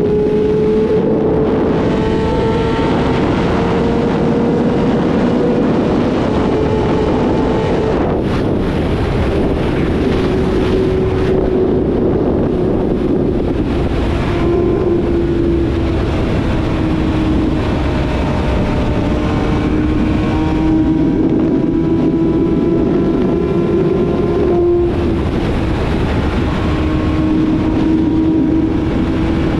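Yamaha YZF-R6 inline-four with a full aftermarket exhaust system running at a steady cruise, its pitch rising slowly, then easing down, with a few brief dips in the sound. Wind rushes over the microphone throughout.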